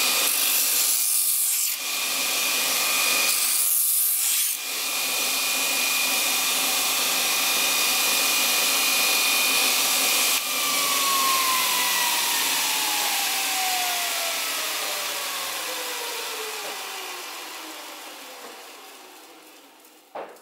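Bench grinder with a belt linisher attachment running with a steady whine. The steel rail edges of a chainsaw bar are pressed against the abrasive belt twice in the first few seconds, each a brief grinding hiss, to chamfer off the burrs. About ten seconds in, the grinder is switched off and spins down, its whine falling in pitch and fading out.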